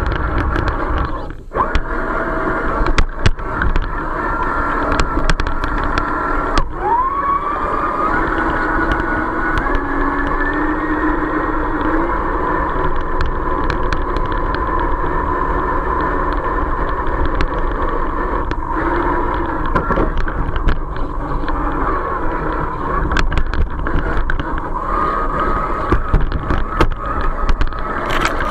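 Radio-controlled scale off-road truck's electric motor and gearbox whining, the pitch rising and falling with the throttle, with scattered sharp clicks and knocks as it crawls over the terrain.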